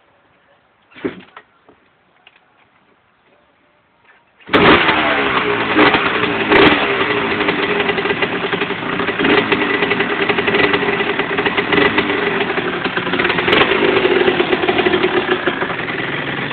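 1993 Suzuki RM125's two-stroke single-cylinder engine being kick-started. There is a single thump about a second in. The engine fires suddenly about four and a half seconds in and runs loud with repeated throttle blips, easing toward idle near the end.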